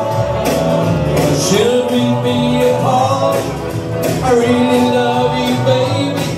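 A rock and roll song: a man singing held notes over a band with a steady beat.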